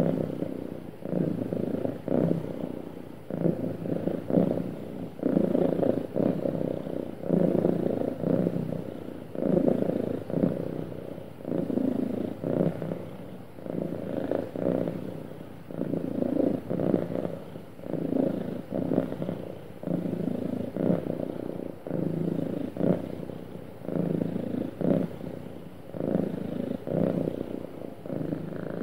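Domestic cat purring steadily, the purr swelling and easing about once a second.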